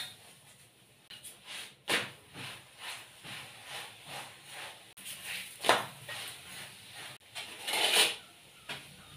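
Kitchen handling sounds while cooking chapati: irregular taps, knocks and rubbing as the flatbread in a pan is turned by hand and dough balls are handled on a floured counter. The loudest knocks come about two seconds in, near the middle and near the end.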